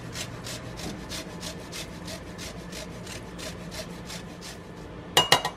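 Lime being zested on a fine handheld rasp grater: even rasping strokes, about five a second. Near the end a few loud, sharp, ringing taps break in.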